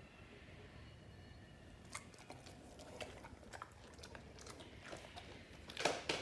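Dog chewing a treat: irregular short crunchy clicks starting about two seconds in, loudest near the end.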